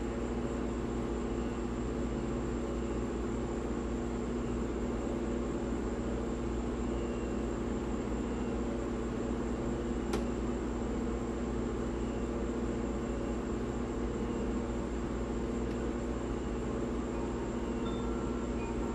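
A steady machine hum with several fixed pitches over a low rumble and a faint high whine, unchanging throughout; a single sharp click about ten seconds in.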